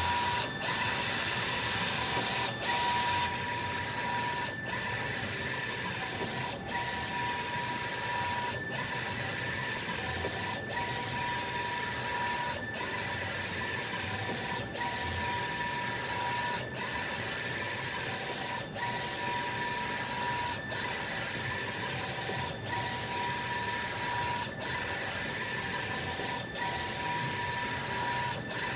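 Wide-format inkjet printer printing sticker vinyl: a steady mechanical whir as the print-head carriage shuttles across the media, with a motor whine that comes and goes and a short break about every two seconds.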